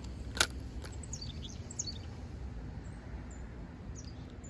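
A single sharp click just after the start, then birds chirping a handful of short high notes between one and two seconds in, with a few fainter chirps near the end, over a low steady hum.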